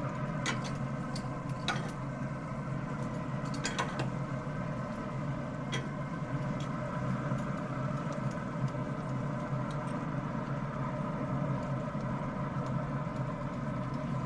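Pellet grill's fan and motor running with a steady hum, with a few light clicks scattered through the first half.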